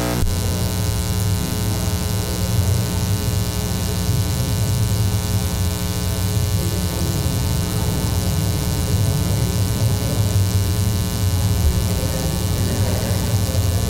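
Steady electrical mains hum and buzz, a stack of low tones that holds at an even level throughout.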